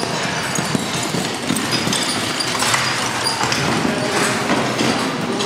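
Hoofbeats of a four-horse carriage team passing close by on the sand footing of an arena, a dense run of overlapping knocks.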